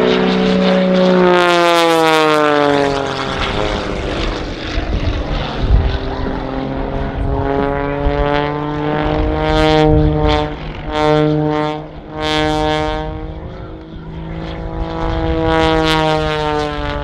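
Aerobatic propeller plane's piston engine and propeller running loud overhead. The pitch falls early on, then climbs, and surges briefly several times in the second half as the power changes through the manoeuvres.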